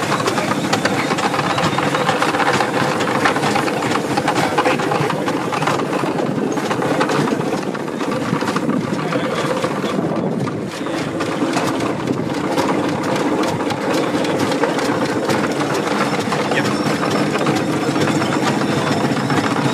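Scale-model Ransomes threshing mill running, belt-driven by a miniature steam traction engine: a steady mechanical hum with rapid, even clattering throughout.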